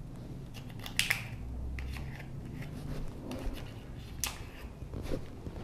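Light clicks and scrapes of a spoon against a small bowl as barbecue sauce is spooned in, with two sharper clicks about a second in and about four seconds in.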